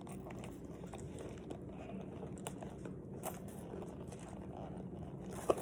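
Faint handling noise of a handbag and its pieces being worked by hand: soft rustling with a few scattered light clicks, and a sharper click near the end.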